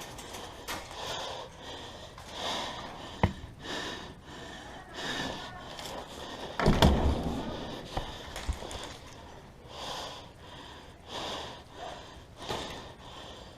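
Soft rustling bursts about once a second from a player moving with gear, with a sharp click about three seconds in and a loud heavy knock about seven seconds in.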